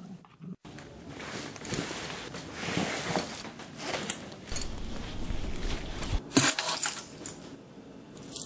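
Clothing rustling with small metal jingles and clicks as a belt buckle is fastened and a dog leash is handled; a few sharper clicks come near the end.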